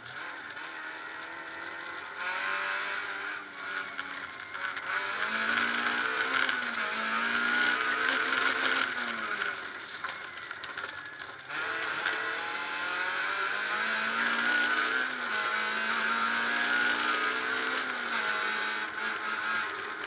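Peugeot 306 rally car's four-cylinder engine heard from inside the cabin at full stage pace, revving up through the gears with a drop in pitch at each shift. About eleven seconds in it cuts back sharply, then pulls hard again.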